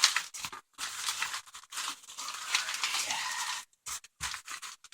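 Packing material being handled and shoved aside: irregular rustling and crinkling in bursts, broken by short silent gaps.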